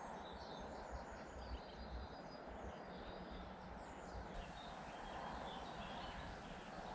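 Faint riverside ambience: small birds chirping now and then over a steady low rumble.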